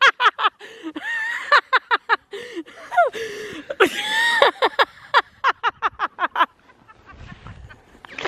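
Women laughing in quick repeated bursts, broken by a couple of longer high-pitched cries, dying away about six and a half seconds in.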